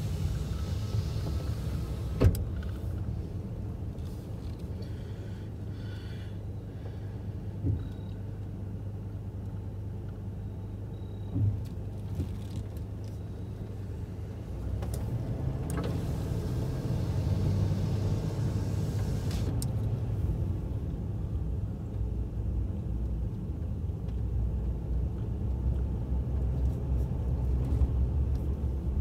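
Vehicle engine and road rumble heard from inside the cab while driving slowly, with a few sharp knocks early on. About halfway through, the rumble grows louder as the engine picks up.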